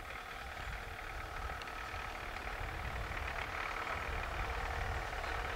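Engine idling steadily, getting slightly louder toward the end.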